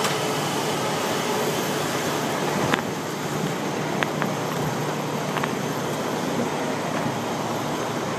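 Steady running noise of a truck's engine, with a few faint clicks.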